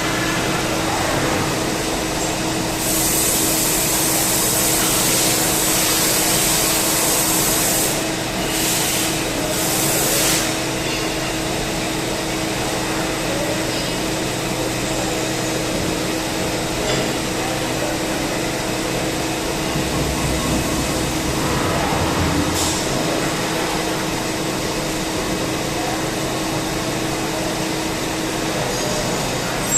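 CNC turning lathe running: a steady machine hum with a held tone, joined about three seconds in by a loud hiss lasting several seconds, then two shorter hisses. The held tone drops out near the end.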